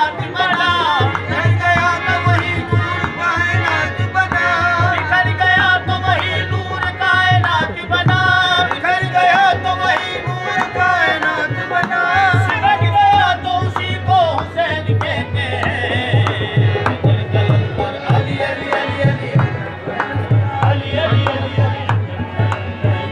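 Live qawwali: men's voices singing to a harmonium, with a hand drum playing a steady beat underneath. The singing is strongest in the first half.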